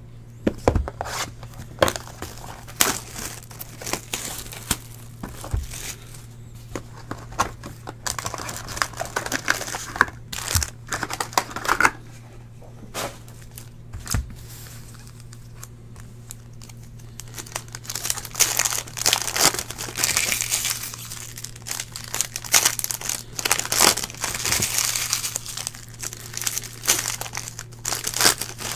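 Foil-wrapped trading-card packs being handled and torn open, the wrappers crinkling and tearing, with scattered clicks and taps of packs and cards on the table. The crinkling grows denser in the second half, over a steady low electrical hum.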